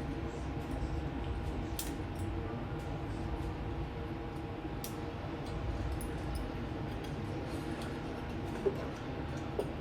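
Faint light clicks and metallic taps of small parts being handled while the governor linkage and its spring are fitted to a two-cylinder Kohler engine, over a steady low background hum.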